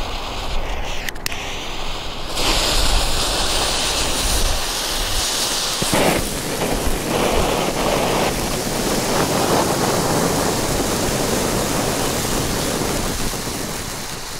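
Small F1 kids' firework fountain pots hissing steadily as they spray sparks, starting about two seconds in, with a sharper crackling burst around six seconds. The hiss eases off near the end.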